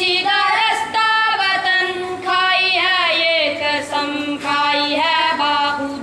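Schoolboys singing an Urdu tarana together, in held, wavering melodic phrases with short breaths between them.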